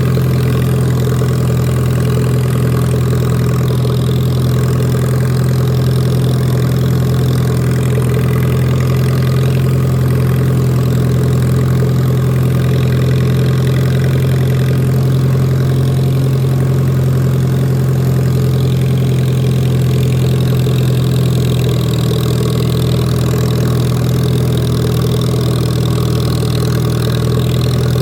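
Lawn mower engine running steadily while cutting grass, a constant low hum.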